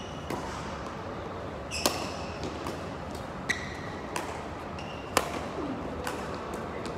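Badminton rackets striking a shuttlecock in a doubles rally: about five sharp hits, the first about two seconds in, echoing in a large sports hall.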